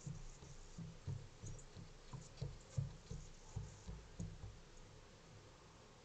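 A series of soft, irregular low thumps, about a dozen in four seconds, from an American crow moving about on a wooden deck railing; they stop about four and a half seconds in.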